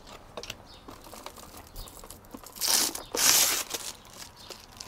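Clear plastic packaging film crinkling as it is handled and pulled off a new drip coffee maker. There are two louder rustles about halfway through and a few light clicks.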